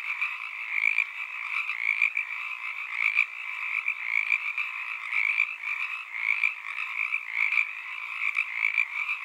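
A dense chorus of frogs calling at night: many overlapping calls running on without a break.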